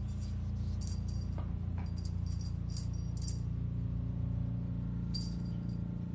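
Small jingle bell jingling in short, irregular shakes, about six times, as kittens bat at a feather wand toy, over a steady low hum.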